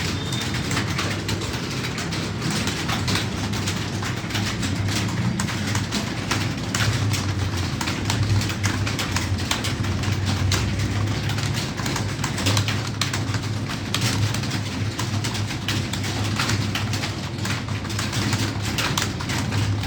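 Computer keyboard keys being typed quickly and irregularly, clicking continuously over a low hum.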